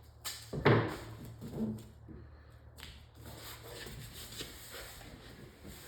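Hands handling tape and a vinyl stripe: a few short sharp rustles and knocks in the first second and a half, the loudest about 0.7 s in, then faint rubbing and shuffling, over a steady low hum.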